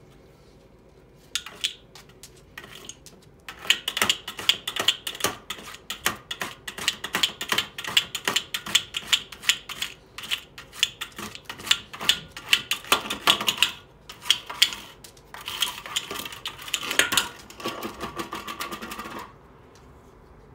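Labrador licking at the ice in a frozen-over stainless steel water bowl, making quick, irregular clicks and taps against the ice and metal, several a second. It starts about a second and a half in and stops shortly before the end.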